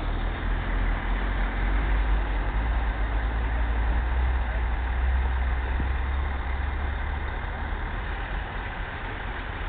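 Heavy farm machinery running steadily, a tractor-drawn sugar beet harvester at work: a low engine rumble under a dense, even mechanical noise.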